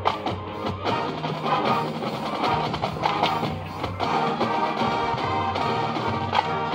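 High school marching band playing, with brass holding chords over drum strikes.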